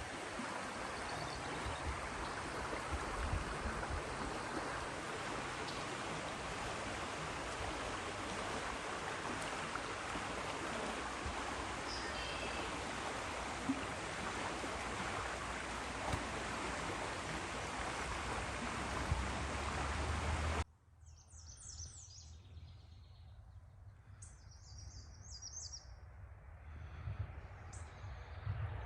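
A steady rushing outdoor noise, like running water or wind, that cuts off abruptly about twenty seconds in. Then comes quieter outdoor ambience with small birds chirping in short high phrases, repeated several times.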